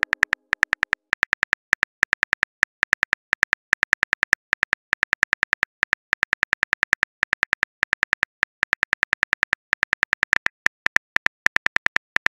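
Phone keyboard typing clicks: quick runs of short, crisp key clicks, several a second, with brief pauses between words.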